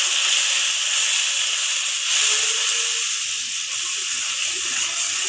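Onion and spice masala sizzling in hot mustard oil in a kadai while it is stirred with a spatula: a steady frying hiss.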